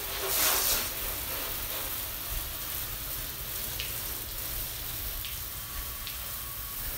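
Garden hose spray nozzle jetting water against a fibreglass boat hull as it is rinsed down: a steady hiss of spray, loudest in the first second.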